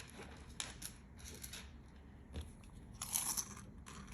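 Faint handling noise from a tiger's eye chip necklace being stretched out: a few soft clicks and rustles of the stone chips, with a brief louder rustle about three seconds in.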